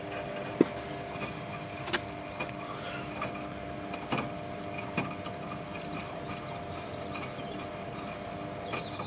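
Samsung Diamond WF8602NGW washing machine turning its drum during a wash: a steady motor hum that stops just before the end as the drum pauses. A few sharp clicks and knocks sound over it, the loudest about half a second in.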